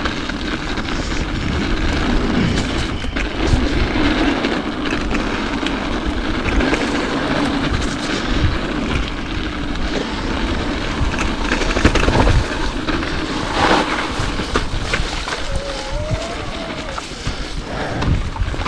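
Mountain bike rolling fast down a dirt flow trail: a steady rush of wind buffeting the microphone over the hum of knobby tyres on dirt, with scattered knocks and rattles from the bike over bumps, the loudest about twelve seconds in.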